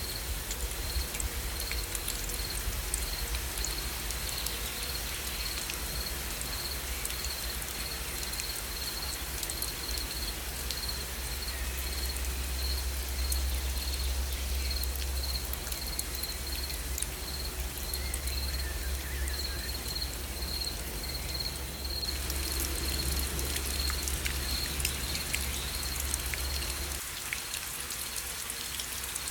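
Steady rain with many small drops pattering. An insect chirps in a steady high pulse about twice a second, over a low rumble that stops near the end.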